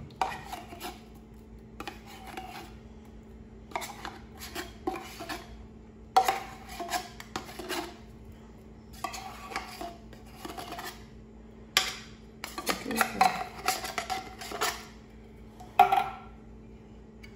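A metal spoon scrapes and clinks inside a tin can of sweetened condensed milk and against an aluminium saucepan. It comes in irregular bursts of scraping and sharp clinks, with a few louder knocks.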